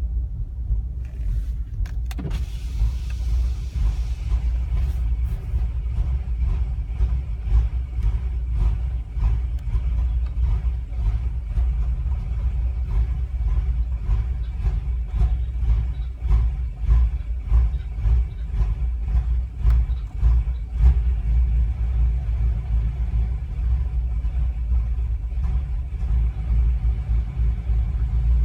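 2014 BMW M5's twin-turbo V8 running with an uneven, irregular beat: the sign of a misfire. A single click sounds about two seconds in.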